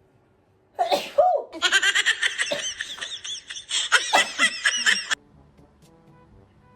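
A person sneezes once, set off by a nasal swab, about a second in. Several seconds of high-pitched, pulsing laughter follow and cut off abruptly.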